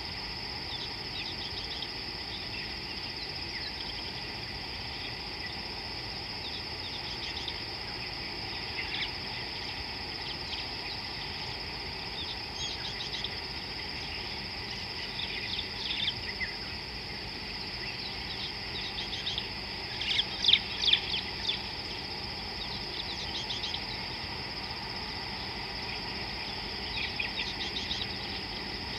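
Steady high-pitched drone of insects, with bird calls chirping on top at intervals and a brief cluster of loud, sharp calls about two-thirds of the way through.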